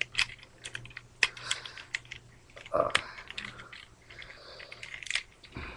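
Irregular light clicks and snaps of plastic parts on a Transformers Dark of the Moon Ironhide action figure, worked by hand during its transformation.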